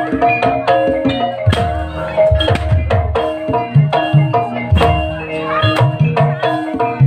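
Live Javanese gamelan music for an ebeg trance dance: struck bronze metallophones and gongs ringing on sustained pitches over a dense pattern of strikes, with deep kendang drum hits falling roughly once a second.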